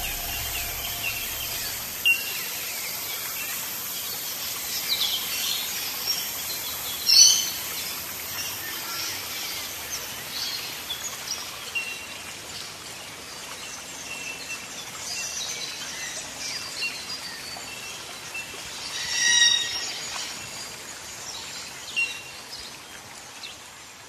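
Woodland birdsong: many small birds chirping and calling over a steady background hiss, with two louder calls standing out, about seven seconds in and again later on.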